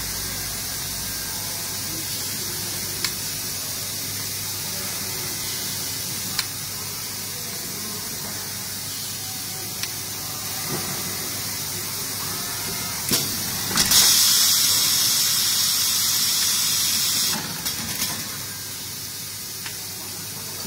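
Robotic TIG welding arc hissing steadily, with sharp clicks every few seconds. About two-thirds of the way through, a louder high hiss runs for about three seconds, then stops suddenly.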